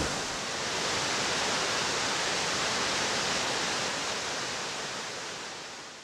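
Water pouring over a concrete spillway apron of a river waterfall, a steady rushing that fades out near the end.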